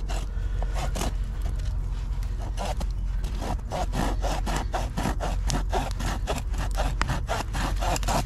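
Hand saw cutting through wood in quick back-and-forth strokes, which come faster from about three seconds in, over a low steady hum.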